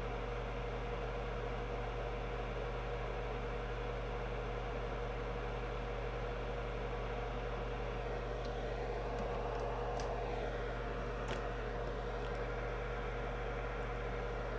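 Steady electrical hum with hiss, unchanging throughout, with a few faint light clicks about eight to twelve seconds in.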